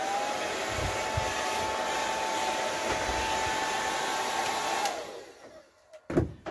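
Handheld hair dryer running steadily on a blast of air with a steady motor whine, then switched off about five seconds in and winding down. A sharp knock follows near the end as the dryer is set down on the workbench.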